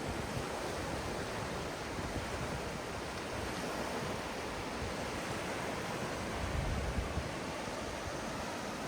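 Ocean surf washing steadily on a beach, with a low rumble of wind on the microphone about six and a half seconds in.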